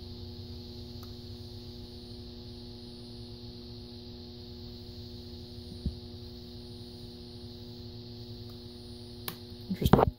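Ballast of a 250-watt high-pressure sodium streetlight humming steadily at mains frequency with several overtones, a hum the owner puts down to noise put out by a light dimmer on the same circuit. A few handling bumps near the end.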